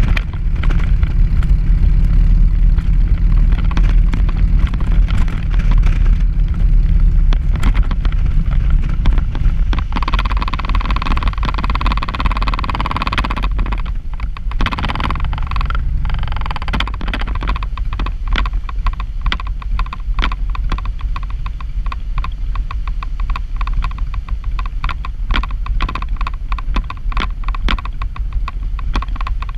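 Wind buffeting the microphone of a moving camera, with wheels rattling over a gravel road. A high squeal rings for a few seconds about ten seconds in and briefly again a little later.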